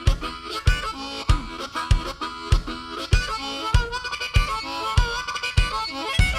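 Intro of a country song: a melody over a steady beat of about one thump every 0.6 seconds.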